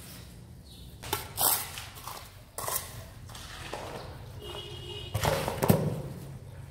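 Scattered knocks and thuds from floor-tiling work on a construction site, loudest in a cluster about five seconds in, over a low steady hum.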